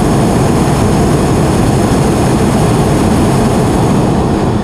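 Hot-air balloon's propane burner firing: one loud, steady blast that tails off near the end.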